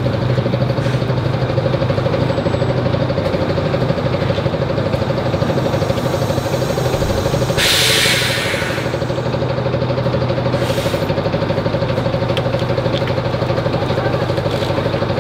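Yutong tour coach idling with a steady engine hum. Its pneumatic door lets out a loud hiss of compressed air about eight seconds in as it opens, and a fainter hiss follows a few seconds later.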